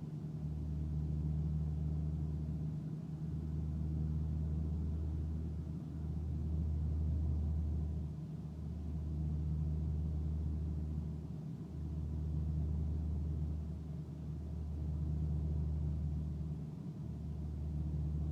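Chevrolet Cobalt SS's rebuilt turbocharged engine running with the car under way, a steady low drone that dips briefly about every two to three seconds.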